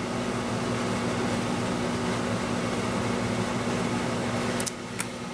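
Steady mechanical hum with a constant low tone under an even hiss, of the kind a fan or air conditioner makes; it eases slightly near the end, with a couple of soft clicks.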